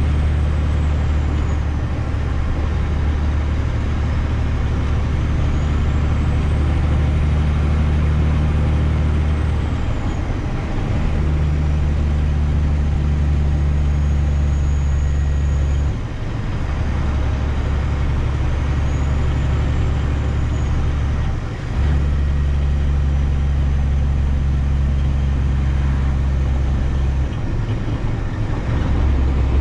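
Semi truck's diesel engine running steadily while driving, with brief dips in the engine sound four times.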